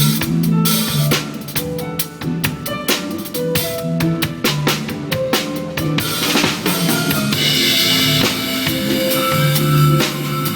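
Drum kit played in rhythm along with a backing track of bass and melody, kick and snare driving a busy beat; about six seconds in a cymbal crash opens out into a ringing cymbal wash over the groove.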